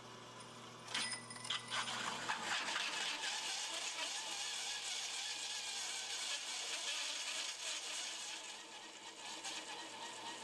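A hole saw cutting into metal: a steady gritty grinding and scraping with sharp clicks, starting about a second in.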